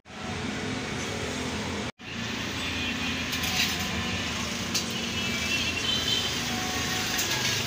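Steady rumble of road traffic, with a few short, light clicks of kitchen utensils.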